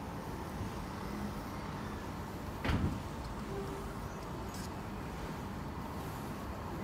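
Steady low hum of a motor yacht's engines running during a harbour manoeuvre, with one short knock a little under three seconds in.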